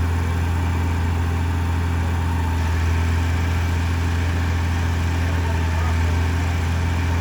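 A heavy truck's diesel engine running steadily, a deep even drone that holds the same pitch throughout.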